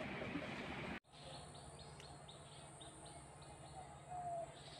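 Faint bird calls: a small bird gives a quick run of short, high chirps, about four or five a second, and a lower single note sounds near the end. Before that, about a second of steady room hiss that cuts off abruptly.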